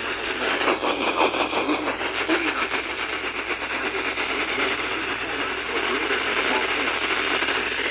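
Weak, distant radio station barely coming in: a steady static hiss with faint, indistinct audio buried beneath it.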